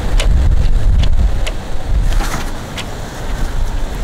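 Wind buffeting the microphone: a loud, uneven low rumble, strongest in the first couple of seconds, with a few light clicks scattered through it.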